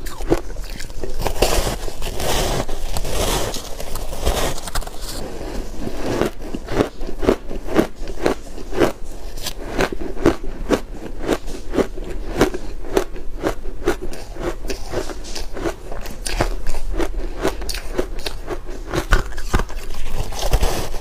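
Close-miked biting and chewing of dry shaved ice coated in matcha powder: a long run of crisp crunches, several a second.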